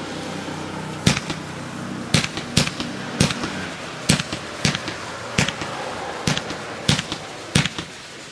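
Fireworks International Silver Cyclone Dragon 100-shot cake firing in sequence: sharp, low-noise launch pops, about twelve, roughly two a second, starting about a second in, over a steady hiss.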